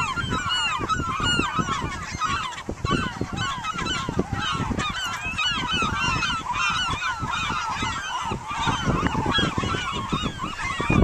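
A dense chorus of many seabirds calling over one another, short rising-and-falling calls overlapping without a break, with wind rumbling on the microphone.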